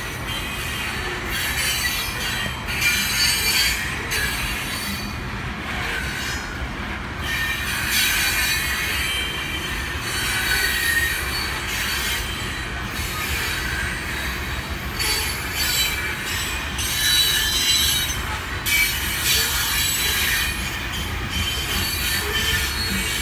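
Loaded coal cars of a long freight train rolling past: a steady low rumble of wheels on rail, with high-pitched wheel squeal that comes and goes every second or two.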